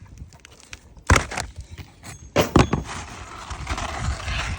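Roofing work on asphalt shingles: a sharp knock about a second in, two more close together a little later, then a longer rough scraping.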